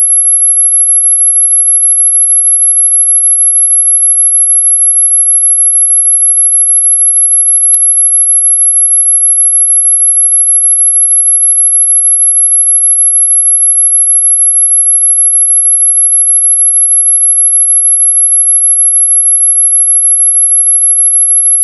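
A single very high-pitched pure tone held unbroken at one steady pitch and level: a 'dog whistle' sound effect, electronically generated rather than blown.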